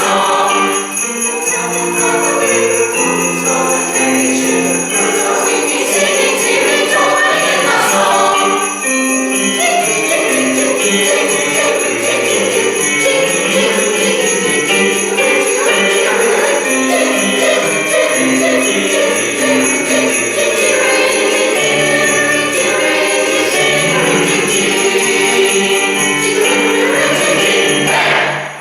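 Mixed choir singing with piano accompaniment, with sleigh bells jingling steadily throughout. The music stops just before the end.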